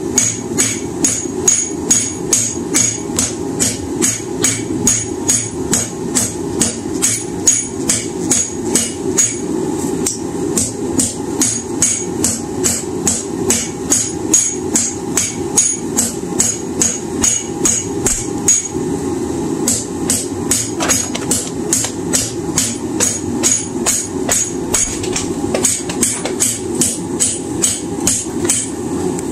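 Cross-peen hammer striking a red-hot railroad spike on a steel anvil at about three blows a second, each blow ringing brightly, to spread and widen the blade. A steady low rushing noise runs underneath, and the blows break off briefly about two-thirds of the way through.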